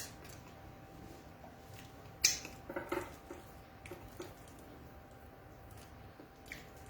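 A person eating beans and fried plantain close to the microphone. About two seconds in there is one sharp click, followed by a short run of soft wet mouth clicks and smacks, with a few faint clicks later.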